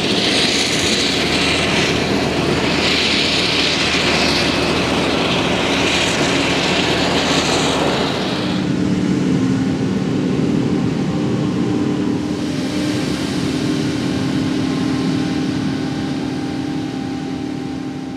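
Krone Big X 700 self-propelled forage harvester at work chopping maize, with a loud hiss that swells and falls. After about eight seconds this gives way to a steadier, lower engine drone of tractors pulling loaded silage trailers, which fades out near the end.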